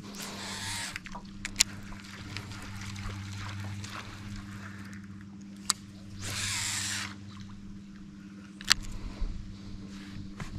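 Steady hum of a small electric motor, most likely the boat's electric trolling motor, with a few sharp clicks and two short hissing rushes, one near the start and one about six seconds in.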